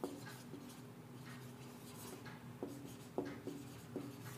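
Marker pen writing on a whiteboard: faint scratching strokes with a few small clicks as the pen lifts and touches down.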